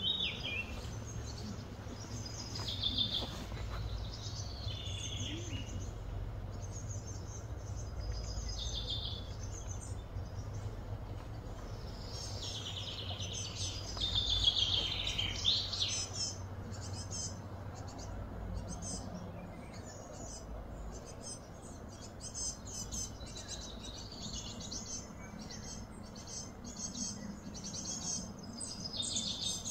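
Birds singing and chirping in the background, with a run of falling whistles loudest about halfway through and quicker chirping near the end, over a steady low hum.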